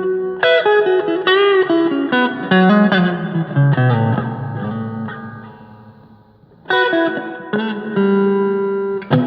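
Agile TC 625 Telecaster-style electric guitar played clean with a little reverb: picked single-note lines with string bends and a descending run that fades away about six seconds in, then a new ringing chord and more notes near the end.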